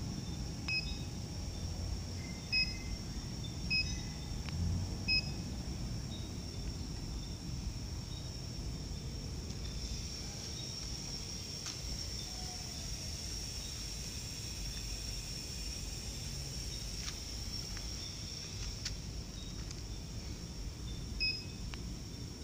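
Short electronic beeps from a Samkoon HMI touchscreen as its keys are pressed: four beeps in the first five seconds and one more near the end. Under them run a steady low hum and a faint high steady tone.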